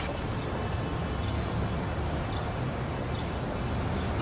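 Steady city street traffic noise: a continuous wash of passing cars and trucks.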